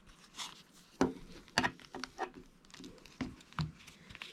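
Handling noise from a plastic jar lid and coaxial cable turned over in the hands: irregular light clicks and rustles, the sharpest about a second in and again about a second and a half in.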